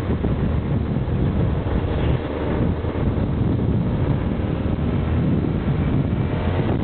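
Wind buffeting a microphone held out of a moving car's window at road speed, over a steady low rumble of engine and tyres.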